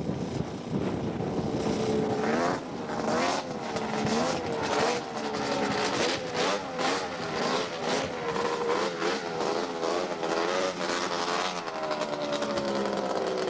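Two-stroke racing snowmobile engine revving, its pitch rising and dipping over and over. Near the end it settles into one long, slowly falling tone.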